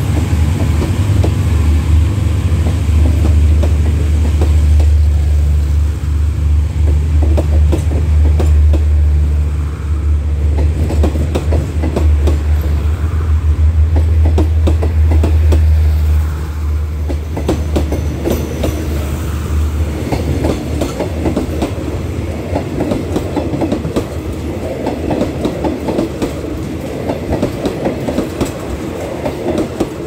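Passenger train coaches rolling past at close range. A deep diesel drone carries through the first half or so and then fades, leaving the clickety-clack of coach wheels over the rail joints.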